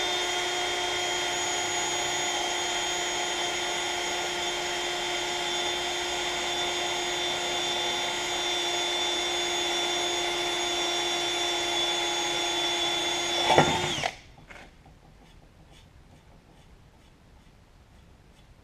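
Cordless drill running at a steady, constant speed with an eighth-inch bit, drilling a stop hole at the end of a crack in an aluminium transmission case to keep the crack from spreading. About fourteen seconds in it swells briefly, winds down in pitch and stops.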